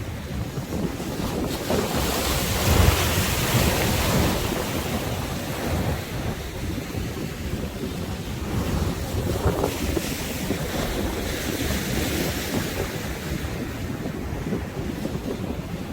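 Sea waves surging and breaking, with strong wind buffeting the microphone into a heavy rumble. The surf swells louder about two to four seconds in and again near the middle.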